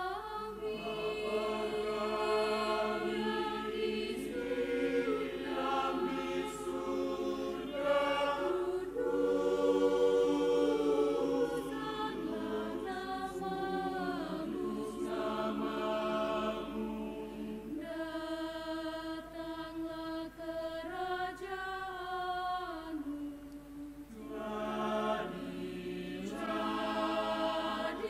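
Mixed choir of male and female voices singing slow, sustained phrases in several parts, with a brief break between phrases a few seconds before the end.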